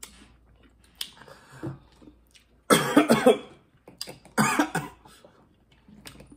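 A person coughing, with two main loud coughs about a second and a half apart and a few smaller ones before them, throat irritated by very spicy food.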